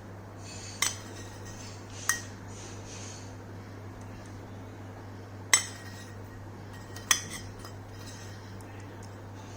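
A spoon clinking sharply against a dish four times, with a few seconds between taps, while baking soda is spooned onto a lemon.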